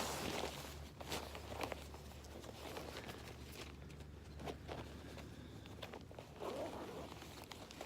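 Rustling and scattered light knocks and clicks of camping gear being handled and pulled out of a backpack.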